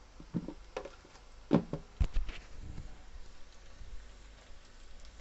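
Silicone spatula scraping and knocking against a nonstick kadhai as sliced onions are stirred while frying in oil: several short knocks in the first half, the loudest about one and a half to two seconds in, then quieter stirring.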